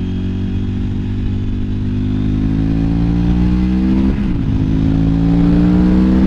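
KTM 950 Adventure's V-twin engine pulling hard under acceleration, its pitch rising steadily, dropping at an upshift about four seconds in, then rising again to a second shift at the very end.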